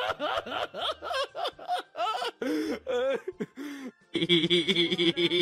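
Rapid laugh-like calls, several a second, each rising and falling in pitch. About four seconds in they stop and a steady droning tone takes over.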